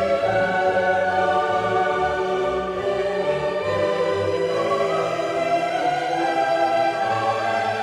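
Background music: choral voices over orchestral accompaniment, held sustained notes with a slow bass line.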